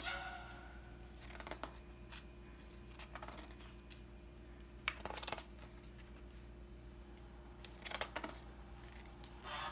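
Pages of a large hardcover illustrated book being turned by hand: several separate paper swishes and rustles, the loudest about five seconds in, over a faint steady low hum.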